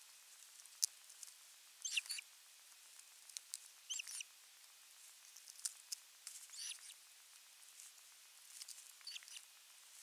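Faint scattered clicks and short scratchy, squeaky bursts at an osprey nest, coming about every two seconds.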